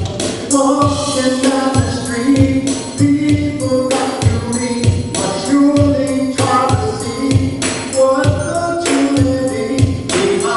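A gospel-style song with a steady drum beat and tambourine, and a voice singing long held notes over it.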